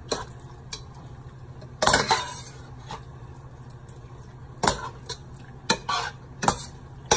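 Metal spatula scraping and clinking against a stainless steel frying pan as pieces of chicken are stirred and turned, in irregular strokes, the longest about two seconds in.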